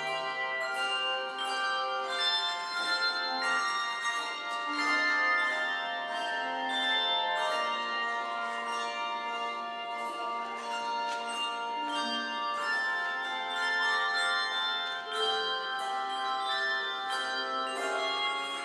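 Handbell choir playing a piece: many handbells struck in melody and chords, their notes ringing on and overlapping.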